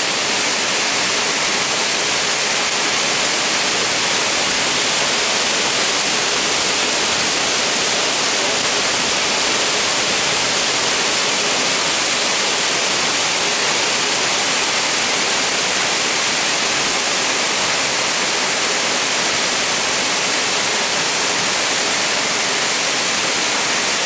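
Waterfall pouring into a rock pool: a loud, steady rush of falling water.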